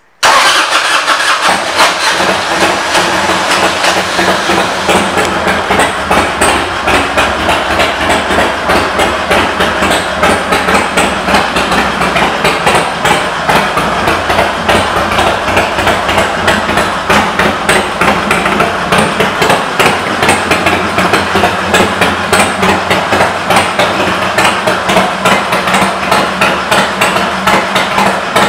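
Harley-Davidson Twin Cam 88 V-twin in a 2001 Dyna Super Glide running at idle through aftermarket Vance & Hines exhaust pipes. It makes a loud, steady, loping beat of rapid exhaust pulses that cuts in abruptly at the start.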